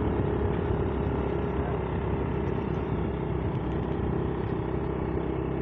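Motorcycle engine running steadily while riding, with rushing wind and road noise.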